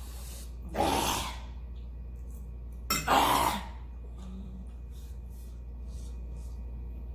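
A person breathing out hard through the mouth twice, about a second in and again about three seconds in, in a reaction to the burn of spicy noodles.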